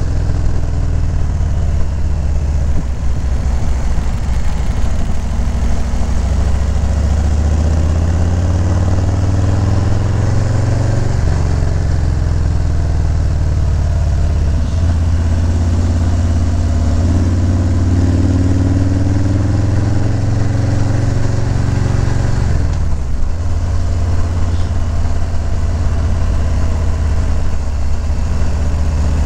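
Harley-Davidson Low Rider S (FXLRS) V-twin engine running while riding, a steady deep drone whose pitch shifts with the throttle: it steps down twice in the middle, climbs again, and briefly drops off about three-quarters of the way through.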